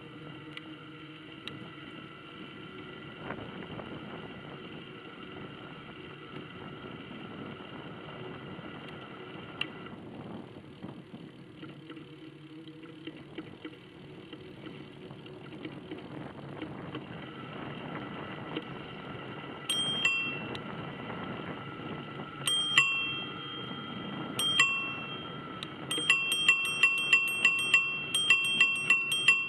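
Bicycle bell rung, single rings three times a few seconds apart, then rung rapidly about three times a second near the end, over the steady noise of riding. The bell is a warning to walkers ahead on the path.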